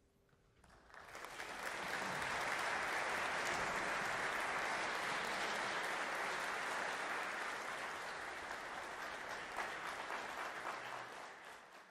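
Concert audience applauding, beginning about a second in, swelling quickly to a steady level and fading out near the end.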